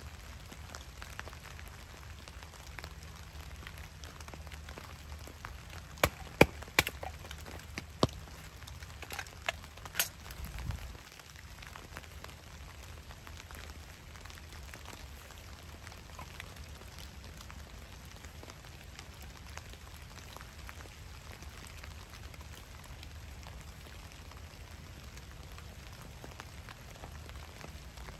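Firewood being split by hand with a wooden baton: a run of sharp wooden knocks between about six and eleven seconds in. After that, steady rain pattering on wet leaf litter.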